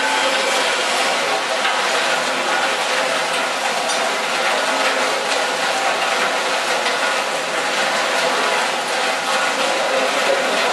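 Stainless-steel potato slicing machine running with a steady, dense mechanical clatter as it is fed potatoes for chips and strips.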